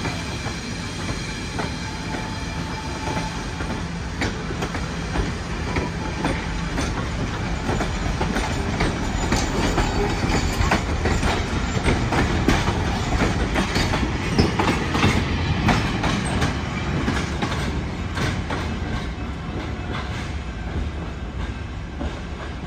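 Passenger coaches and a caboose rolling past on jointed track: wheels rumbling and clicking over the rail joints, with a faint wheel squeal in the first few seconds. The sound is loudest as the last cars pass, then fades as the train moves off.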